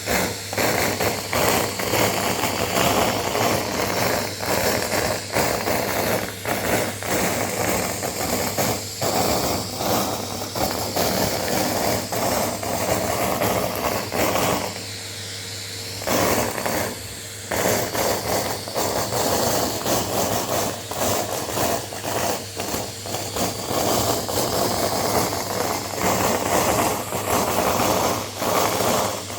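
Vacuum cleaner running with a steady motor hum and whine while shredded brown paper rattles and crackles up the nozzle in rapid, dense clicks. About halfway through the paper noise drops out for a second or two and only the motor is heard.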